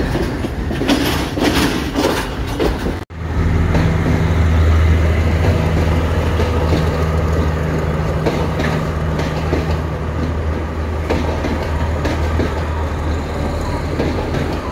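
Diesel multiple-unit passenger trains passing. First the wheels clatter over rail joints and points. About three seconds in the sound cuts to a steady low diesel engine drone as a second train rolls by, with occasional wheel clicks.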